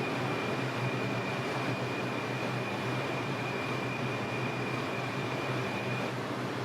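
R142 subway car running between stations, heard from inside the car: a steady rumble of wheels and rails with a thin, steady high whine from the train's propulsion that stops about six seconds in.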